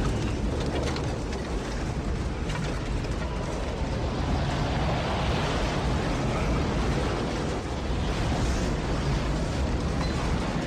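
Storm wind in a simulated tornado, a steady rushing roar with a deep rumble underneath.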